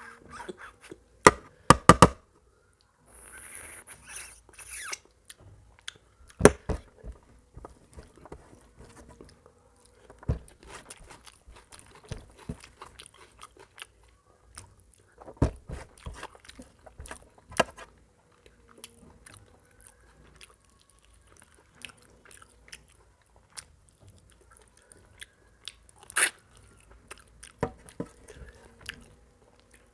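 Close-miked mukbang eating: a man chewing and biting food eaten with his hand, with sharp, loud mouth clicks several times among quieter chewing.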